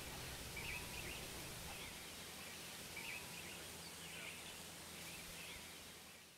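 Faint outdoor ambience with birds chirping in short scattered calls, fading out near the end.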